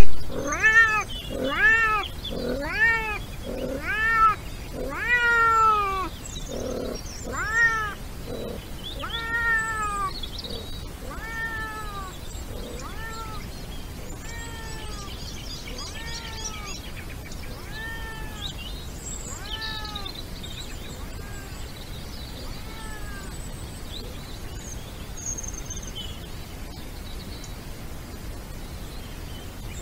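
European wildcat (Felis silvestris) in the breeding season giving a long series of meows, about one a second, each call rising and then falling in pitch. The calls are loud for the first several seconds, then grow steadily fainter and stop about 23 seconds in.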